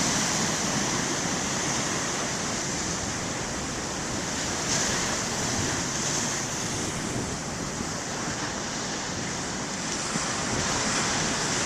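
Big ocean waves breaking and washing on the shore: a steady rushing surf that swells slightly about halfway through.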